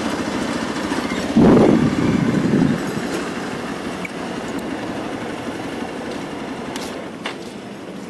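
Motorcycle running on the move, with steady wind and road noise; a louder swell about one and a half seconds in dies away a second later, and the sound slowly fades toward the end.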